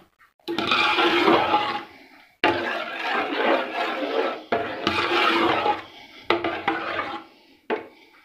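Metal spoon stirring thick carrot and semolina halwa in a steel pot over high heat, the roasting (bhunai) stage. It gives a wet, scraping churn in about five strokes, each starting sharply and fading.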